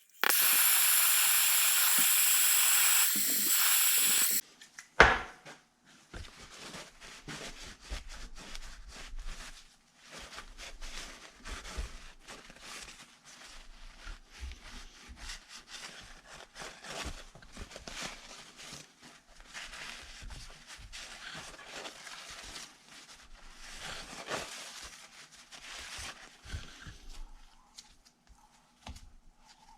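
A loud, steady hiss lasting about four seconds, then a single sharp knock, followed by irregular light scraping, rubbing and clicking of small parts being worked on a bench during a fuel pump rebuild.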